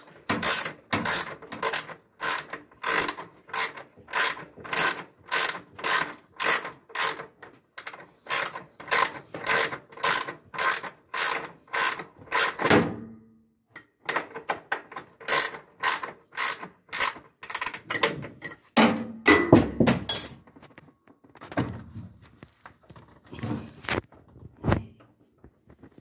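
Ratchet wrench clicking in quick, even strokes, about two a second, as it tightens the nut on the clamp band bolt of a washing machine tub. It stops briefly about halfway through, then goes on in more uneven strokes that thin out near the end.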